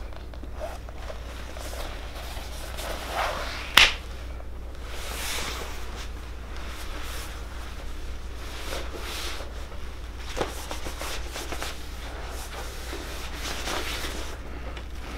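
Vinyl bow sleeve rustling and sliding as a longbow is handled and unwrapped, with one sharp snap about four seconds in.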